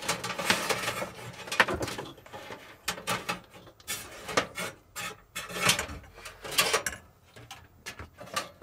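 Irregular scraping, rubbing and knocking as a bundle of electrical wires is pulled through a cabinet cavity, brushing against wood and sheet metal.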